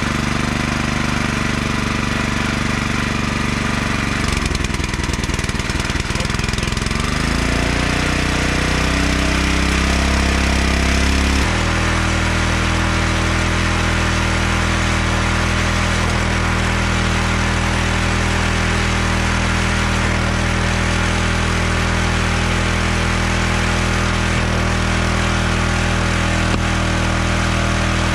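Small gasoline engine on a hydraulic log splitter running steadily. Its speed sags and picks back up a few seconds in, then settles into an even run.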